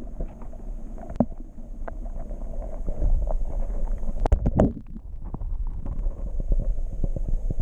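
Camera handling noise: a low rumble with scattered knocks and clicks as the camera is held and passed by hand, the loudest a couple of thumps about four and a half seconds in.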